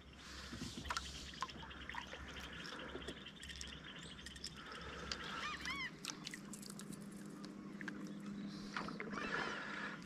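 Faint wild bird calls with scattered small ticks, and a short run of rising-and-falling calls a little after halfway through.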